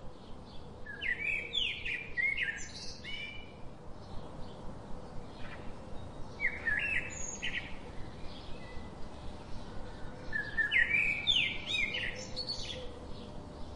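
A songbird singing three short, quick phrases of chirping notes a few seconds apart, over a faint steady outdoor background.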